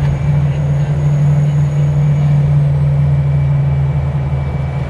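Mitsubishi Canter diesel engine of a small bus running steadily under way, a constant low drone with road noise, heard from inside the bus cabin.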